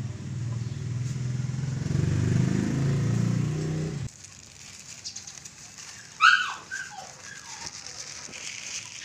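A motor vehicle engine runs close by, cutting off abruptly about four seconds in. After that there is quieter outdoor ambience with faint plastic crinkling, and a little after six seconds a chicken gives one loud, short squawk that falls in pitch.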